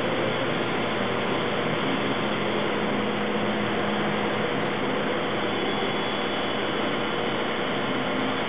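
Saginaw Machine Systems Challenger I-25-MP inverted vertical lathe running its traverse cycle: a steady mechanical hum and hiss, with a low tone coming in about two seconds in and fading out about five seconds in.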